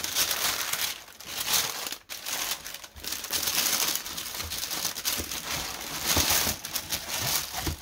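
Tissue paper crinkling and rustling as hands fold it back from sneakers inside a shoe box. The sound comes and goes, with short lulls about one and two seconds in.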